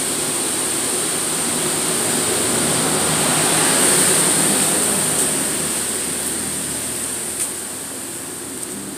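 High-pressure water jets of an automatic car wash spraying with a steady loud hiss, swelling about four seconds in and then easing off.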